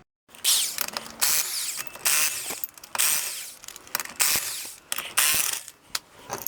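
Socket ratchet wrench clicking in repeated bursts of quick strokes as lug nuts are loosened and spun off.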